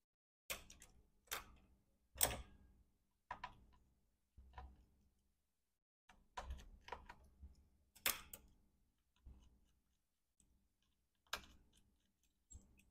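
About a dozen faint, irregularly spaced clicks and taps of small tools and parts being handled while a MacBook Pro 13-inch (A1989) is taken apart to remove its logic board; the sharpest clicks come about 2 and 8 seconds in.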